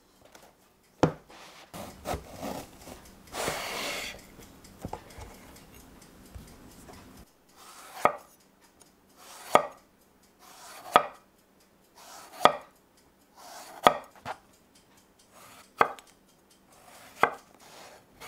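Chef's knife cutting a raw aubergine into wedges on a wooden cutting board: a sharp knock about a second in and some rustling as the halves are handled, then seven slow, even cuts about a second and a half apart. Each cut is a short crunch through the flesh ending in a knock of the blade on the board.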